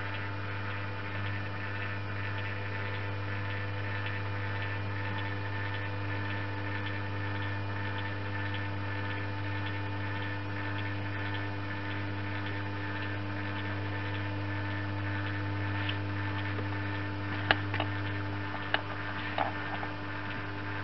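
Steady low electrical hum that does not change. A few short, sharp clicks come near the end.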